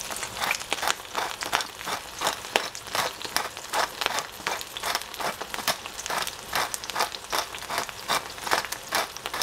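Hand-turned pepper mill grinding black peppercorns: a steady string of crunchy clicks, about three a second.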